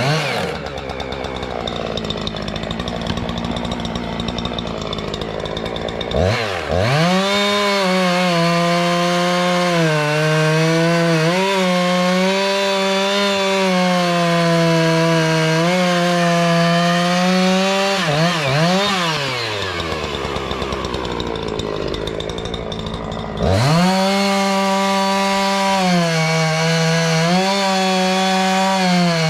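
Two-stroke chainsaw running at high revs with a wavering pitch. The engine drops off twice, from the start to about six seconds in and again from about 20 to 23 seconds, then revs straight back up.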